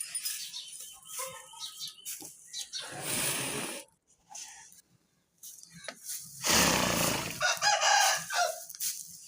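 Farmyard chickens clucking, with two loud bursts of rushing noise about three seconds in and again about six and a half seconds in.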